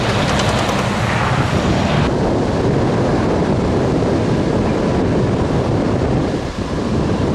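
Rushing road roar of a heavy truck driving past, mixed with wind rumbling on the microphone. The hiss dulls sharply about two seconds in as the truck moves off.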